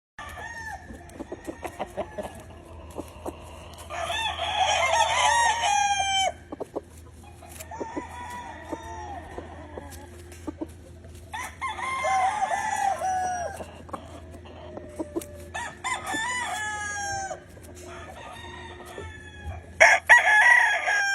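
Roosters crowing, about four long crows, several of them overlapping from different birds, with short clucks and calls between them.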